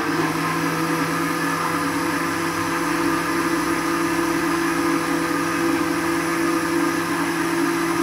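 Westpoint juicer-blender's motor running at a steady pitch, blending a milky mixture of almonds, apple and dates in its jar.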